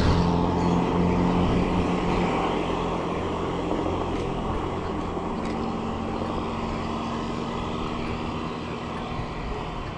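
A motor vehicle's engine running with a steady hum that slowly fades.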